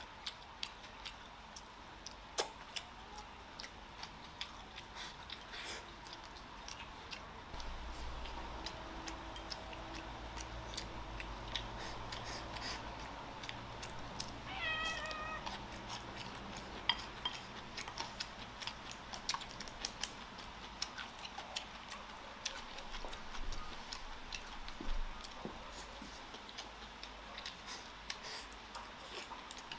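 A cat meows once about halfway through, a single drawn-out call of about a second that steps down in pitch. Around it are the small clicks of chopsticks against a rice bowl and eating sounds.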